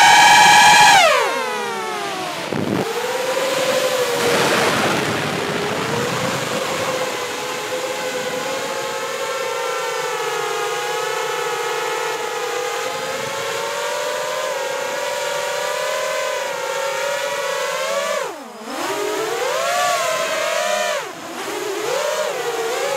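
Cinelifter drone's brushless motors and propellers whining in flight: a loud multi-tone whine that falls steeply about a second in as the throttle comes off, then holds steady, with two sharp dips and recoveries in pitch near the end.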